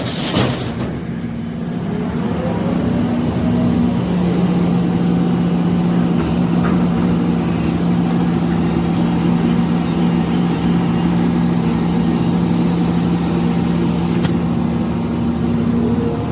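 JCB 3DX backhoe loader's diesel engine running steadily, picking up a little over the first few seconds and then holding a constant speed. A few sharp knocks right at the start.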